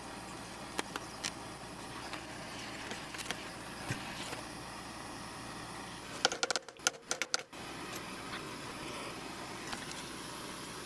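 Hand-held gas torch hissing steadily as its flame heats a steel cone to soften the CA glue holding it on a shaft. A few sharp clicks sound, with a quick cluster of them and brief dropouts about six to seven seconds in.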